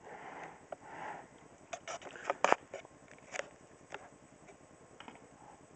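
Faint handling noise from a subwoofer being turned in the hands: scattered light clicks and taps, most of them in the middle couple of seconds, with a few soft rustles.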